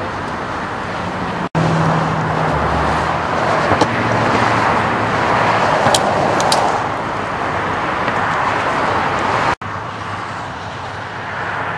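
Freeway traffic rushing past in a steady stream, swelling louder in the middle as vehicles go by. It is broken twice by a brief gap.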